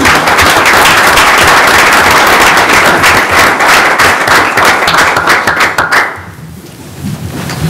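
Audience applauding: a dense patter of many hands clapping that starts at once and dies away about six seconds in.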